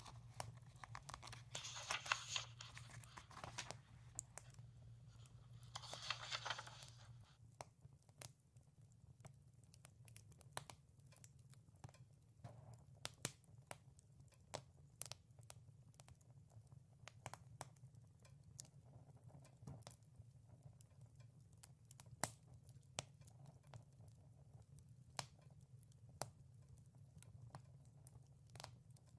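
Book pages turning with a paper rustle, twice in the first seven seconds, over a quiet wood fire crackling with scattered sharp pops and a low steady hum.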